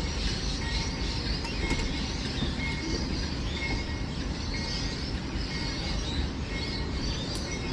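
Train running past with a steady low rumble and rushing noise, and a faint short high beep repeating about once a second.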